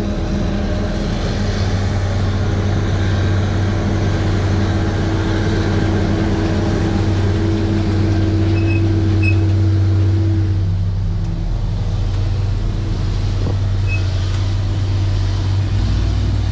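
Large diesel farm machinery running steadily under load, a constant low drone with a held higher tone that drops away and changes character about ten seconds in.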